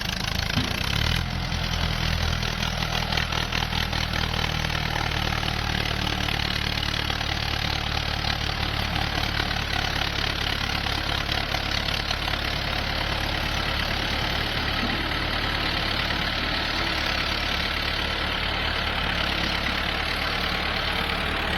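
Diesel engine running steadily at a low, even speed, with no revving.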